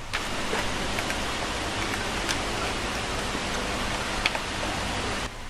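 Steady rushing hiss of location background noise, with a few faint ticks; it cuts in and out abruptly.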